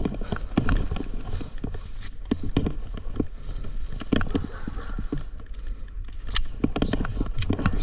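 Irregular knocks, clicks and rustling from a player moving about in airsoft gear, over a low rumble of wind and handling on the microphone.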